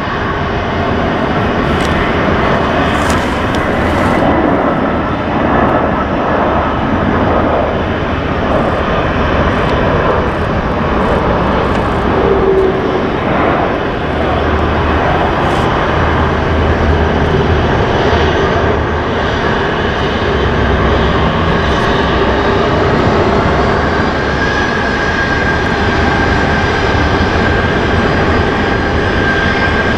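Twin-engined jet airliner's engines at high power on the runway: a loud, steady rush of jet noise, joined by a steady engine whine in the last few seconds.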